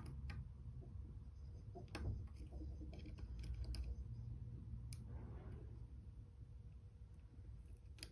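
Scattered small clicks and taps of tools handling tiny iPhone parts during disassembly, a few close together about three to four seconds in, over a low rumble.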